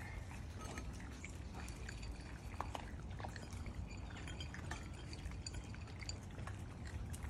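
Miniature Schnauzer puppies eating from ceramic bowls: scattered small clicks of kibble against the bowls and wet chewing sounds, over a steady low rumble.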